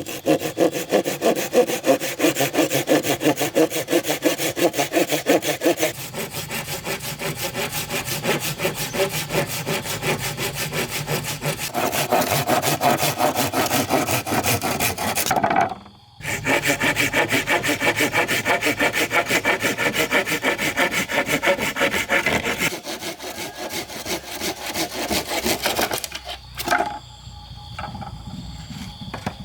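Hand saw cutting through wood in quick, regular back-and-forth strokes, about three a second. The sawing stops briefly about halfway through and becomes sparser near the end.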